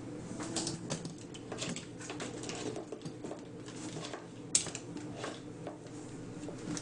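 Scattered light clicks and clinks of small hard objects, irregular, with one sharper knock about four and a half seconds in.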